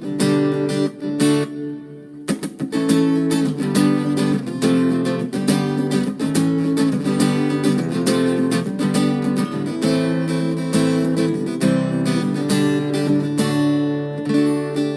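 Mitchell electro-acoustic guitar strummed in chords, played through a small battery-powered Blackstar Superfly amplifier with a little reverb, with a short break about two seconds in.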